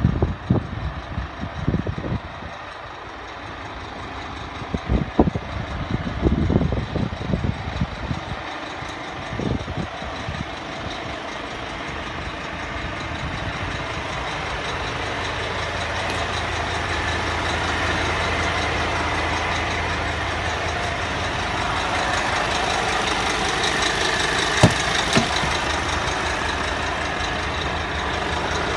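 Diesel engine idling steadily, with irregular low bumps on the microphone over the first several seconds and a single sharp knock near the end.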